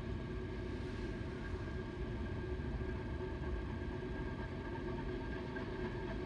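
BNSF manifest freight train passing out of sight: a steady low rumble with an even hum running through it.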